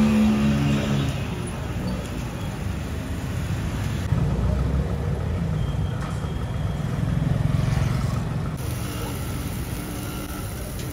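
Steady low rumble of motor noise, like passing street traffic.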